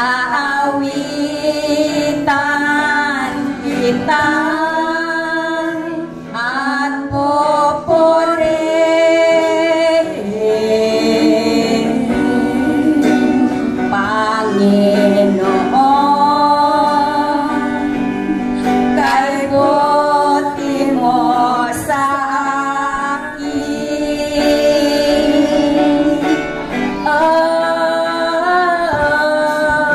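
Live gospel worship song sung by a man and a woman through microphones, with long held notes, accompanied by guitar and a drum kit.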